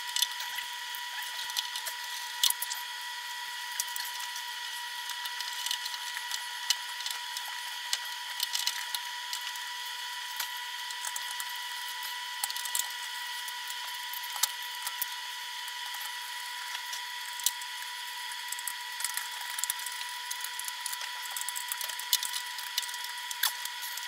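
Small clicks and taps of a screwdriver and sheet-metal parts as the gas water heater's flame sensor and burner access cover are screwed back in place, over a steady high-pitched whine and hiss.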